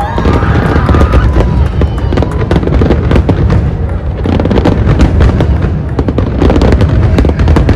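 Fireworks display: a dense, continuous run of bangs and crackles over a steady low rumble. A few gliding whistle-like tones come near the start.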